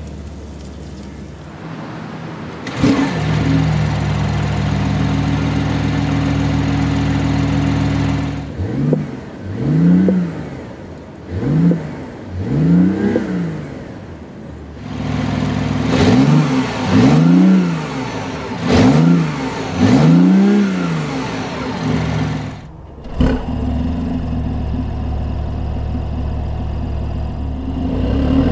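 BMW i8's 1.5-litre turbocharged three-cylinder engine starting about three seconds in and settling into a steady idle. It is then revved while standing still in about seven quick blips, first three and then four, each rising and falling in pitch, and drops back to idle.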